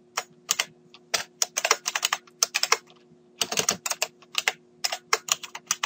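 Typing on a computer keyboard: quick, irregular keystrokes in runs, with a brief pause about three seconds in, over a faint steady hum.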